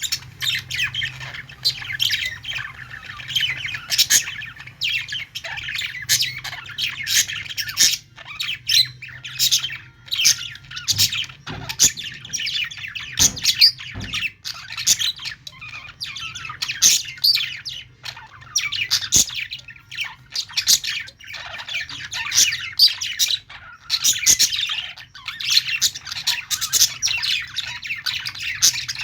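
Several budgerigars chattering, with quick overlapping chirps, warbles and squawks and no pauses.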